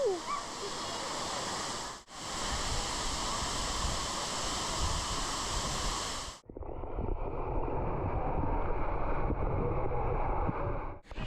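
Steady rush of falling water from a waterfall, broken off abruptly about two seconds in and again past the halfway mark. After the second break the rush sounds duller, with more low rumble.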